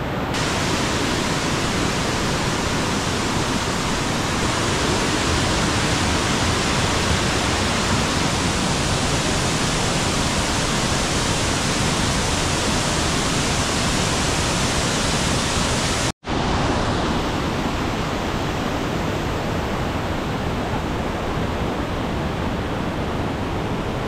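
Waterfalls pouring into a lake pool: a steady rush of falling water. About two thirds of the way through it cuts out for an instant, then carries on a little softer and duller.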